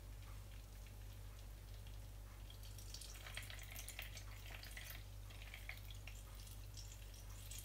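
Whey trickling and dripping from a cloth bundle of strained yogurt through a mesh strainer into whey already pooled in a plastic bowl, faint, picking up about three seconds in.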